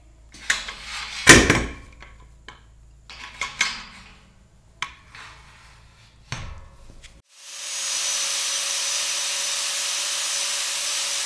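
A few knocks and clatter, the loudest a sharp knock about a second in, then about seven seconds in a handheld angle grinder starts and runs steadily, grinding down the welded steel of a tow pole.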